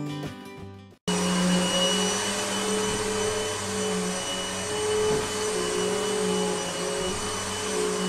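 Guitar music fades out, then about a second in a vacuum cleaner's motor cuts in at full power and runs steadily with a high whine over a low hum.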